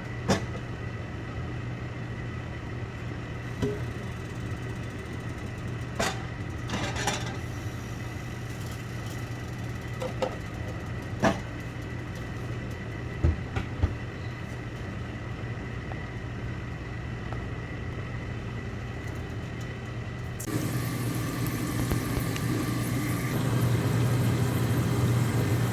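A steady low mechanical hum with a thin high tone over it, broken by a few sharp clicks and knocks of kitchen utensils. About twenty seconds in, a steady hiss joins and the sound grows louder.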